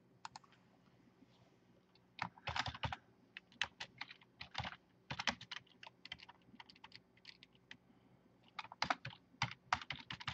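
Typing on a computer keyboard: bursts of quick keystrokes in uneven runs, starting about two seconds in.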